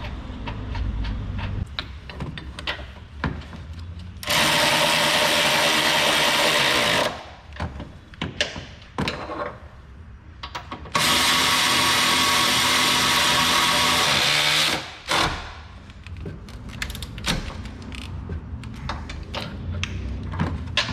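Cordless power tool running two steady spells of about three seconds each, driving in the engine mount bolts. Light clicks and knocks of tools and metal between and after the runs.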